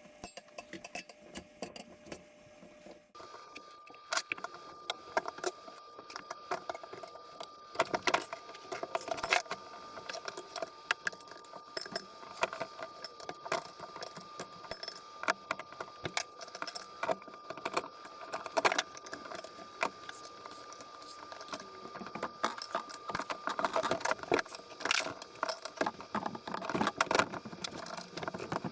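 Steel tire irons clinking and scraping against the spoked rim of a Zero FX dirt bike's rear wheel as the tire bead is levered back onto the rim, an irregular run of metallic clicks and clacks. A faint steady whine sits behind it.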